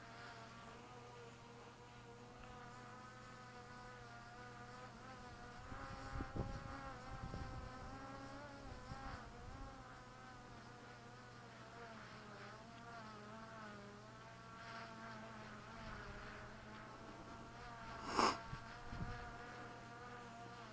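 DJI Mavic Pro quadcopter's propellers whining faintly overhead, the pitch wavering up and down as the motors fight gusty mountain wind. Wind rumbles on the microphone about six seconds in, and a short sharp knock comes near the end.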